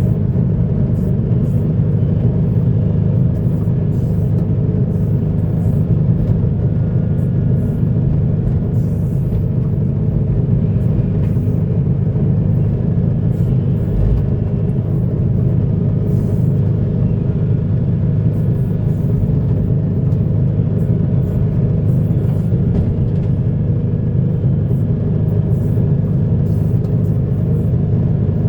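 Heavy diesel earthmoving machinery running steadily under load: a deep, even engine rumble with faint scattered clicks on top.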